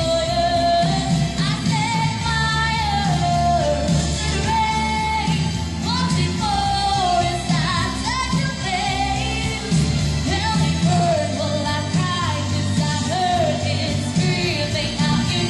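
A woman singing a pop ballad live into a handheld microphone, amplified through PA speakers over a steady backing accompaniment.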